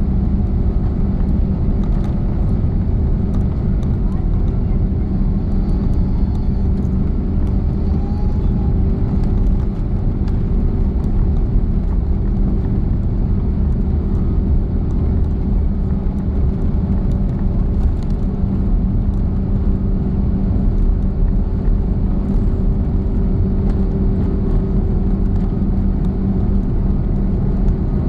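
Steady engine and airframe rumble of an Airbus A340-600, heard from inside the passenger cabin, with a few low hums running through it.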